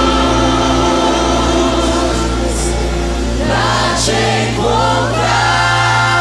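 Gospel choir of mixed men's and women's voices singing with instrumental backing and a steady low bass: long held chords, with moving, bending vocal lines about halfway through before the chord settles again.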